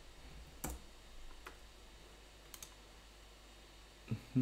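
A few separate sharp computer clicks, about a second apart, over a faint steady low hum.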